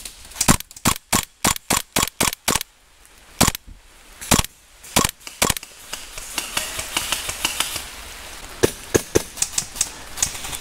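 Airsoft guns firing in single shots: a quick string of about nine sharp cracks at roughly four a second, then scattered single shots, and another quick string near the end.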